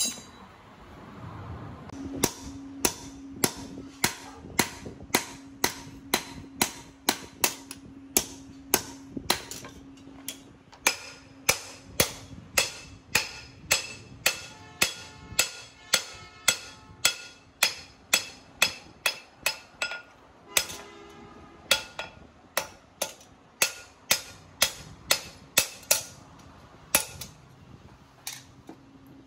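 Hand hammer striking a twisted steel bar on an anvil, forging a knife blade: sharp blows about two a second, many with a metallic ring, with a short pause about twenty seconds in. A steady low hum runs underneath.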